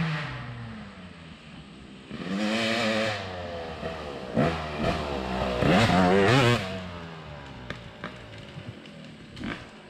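Dirt bike engine revving hard in two bursts, rising and falling in pitch as it is ridden over the motocross track, with a few sharp clacks near the end.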